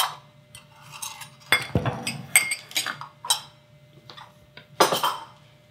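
Kitchenware clattering: glass bowls, dishes and utensils knocked and set down, about half a dozen irregular clinks and knocks with a louder cluster near the end.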